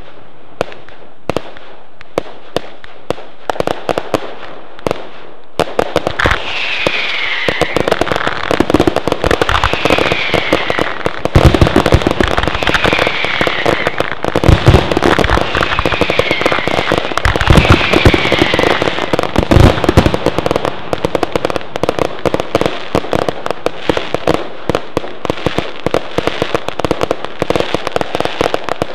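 Fireworks display going off: sparse crackling at first, then from about six seconds in a dense barrage of bangs and crackling with several heavy booms. Five short falling whistles sound through the middle of the barrage.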